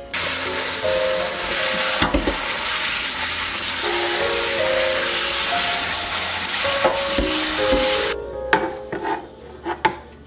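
Tap water running over mushrooms in a stainless steel colander, a steady hiss that cuts off about eight seconds in. A few light knocks follow as the mushrooms are tipped out onto a wooden cutting board. Soft background music plays underneath.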